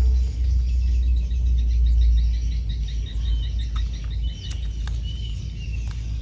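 Outdoor wind rumbling on the microphone. Over it, a run of high, evenly spaced chirps at about five a second starts about a second in and stops after about three seconds, followed by a few faint clicks.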